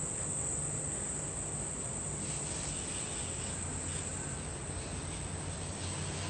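Garden hose with a hose-end shine sprayer hissing in uneven swells as it sprays the car down, over a steady high-pitched buzz and a low hum.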